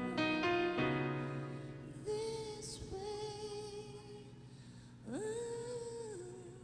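A woman singing a ballad with instrumental accompaniment. Chords ring out at the start, then she holds long notes with vibrato, and about five seconds in she swoops up into a held note.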